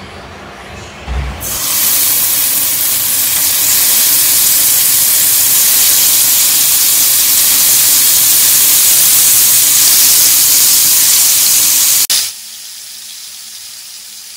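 Marinated bone-in chicken pieces sizzling in hot oil in a nonstick frying pan. The sizzle starts suddenly about a second and a half in and is loud and steady, then near the end drops abruptly to a quieter sizzle.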